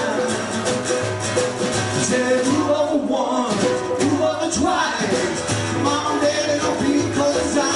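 Live band playing a rock-and-roll song on guitars and drums, with a steady beat.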